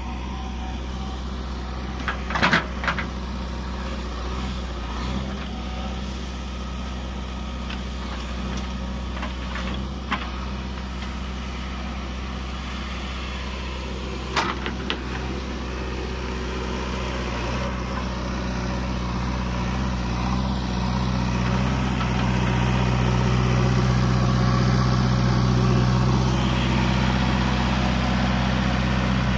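JCB 3DX backhoe loader's diesel engine running steadily, with a few sharp knocks in the first half. The engine gets louder over the second half.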